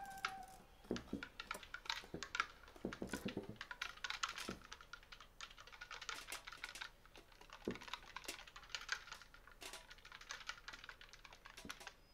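Scattered dry clicks, taps and rattles played by an ensemble in a contemporary graphic-score piece. They come in irregular clusters and thin out near the end. A held pitched note dies away just at the start.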